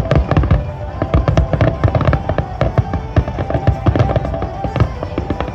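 Fireworks finale barrage: shells bursting in rapid, overlapping succession, several deep booms and sharp cracks a second with no let-up.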